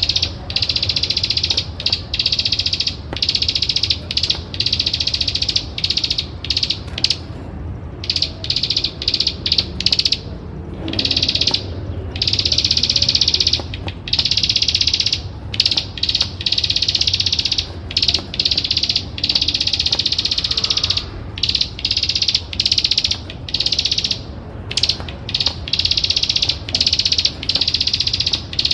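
Plain prinia (ciblek sawah) singing its fast, rattling clicking trill, repeated in runs of one to several seconds with brief breaks between them.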